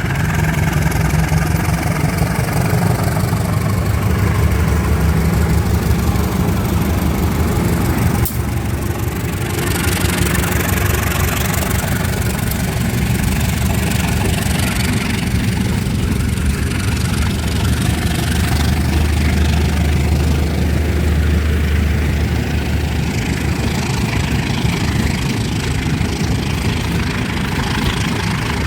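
Diesel locomotive engine running steadily at a low idle, a deep even drone, with a short sharp click about eight seconds in.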